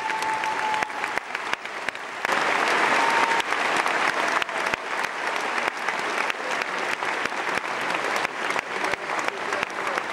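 Large theatre audience applauding, a dense patter of many hands clapping that swells about two seconds in.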